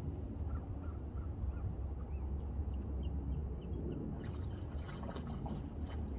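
Wind rumbling on the microphone. A bird calls in a run of short notes in the first half, and a patter of clicks and rustles comes near the end.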